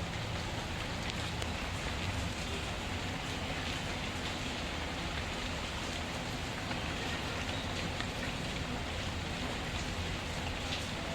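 Steady rain falling, an even wash of noise, with faint scattered crackles of a wood fire.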